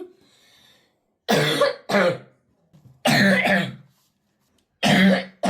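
A boy coughing in a fit: six coughs in three quick pairs, about a second and a half between pairs. These are his chronic coughing attacks, which doctors have not explained; allergy was ruled out, and one doctor suggested a foreign body in his airway.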